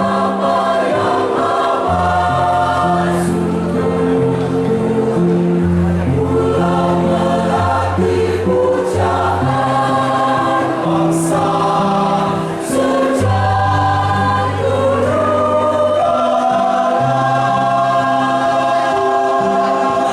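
A choir singing a slow song in long held chords that change every second or two.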